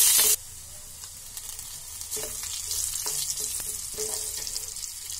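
Whole spices, garlic and dried red chillies sizzling in hot mustard oil, stirred with a steel spoon. The loud sizzle drops off suddenly a moment in, leaving a quieter steady sizzle with a few light taps of the spoon against the pan.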